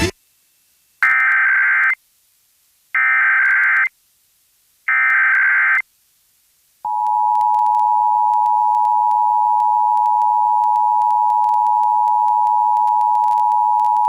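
Emergency Alert System test over broadcast radio: three short warbling SAME header data bursts, about a second apart, then the steady two-tone EAS attention signal starting about seven seconds in and holding unbroken. This is the opening of a required test alert, which the spoken test message follows.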